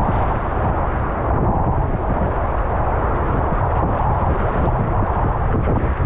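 Loud, steady rush of river water around a kayak, mixed with wind buffeting the action camera's microphone.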